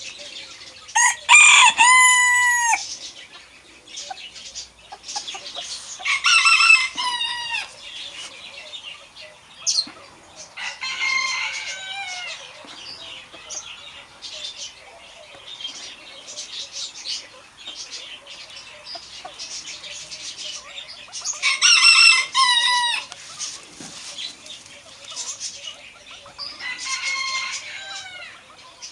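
Rooster crowing five times, each crow one to two seconds long and falling off at the end. Loud crows alternate with fainter ones, with small clucking sounds in between.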